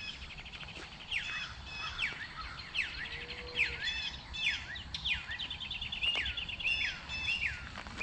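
Birdsong from a northern mockingbird, loud, singing varied phrases, each repeated several times in quick runs, with other birds faint behind it.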